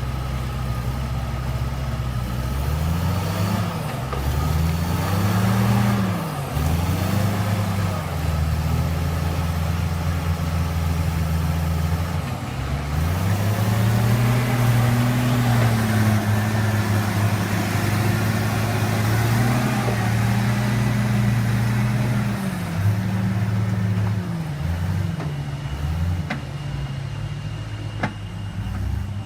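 Logging truck's diesel engine working hard, its pitch rising and falling several times as it revs up and drops back, with steady stretches between.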